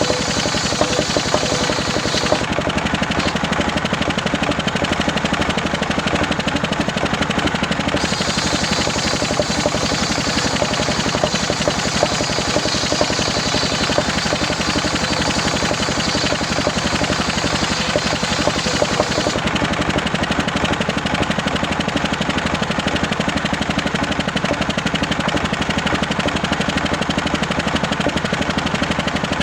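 A homemade, engine-driven circular saw running steadily while cutting waru wood into rafter blanks. The engine's rapid, even firing pulses run throughout. A higher blade whine comes and goes, dropping out about two seconds in and again a little past the middle.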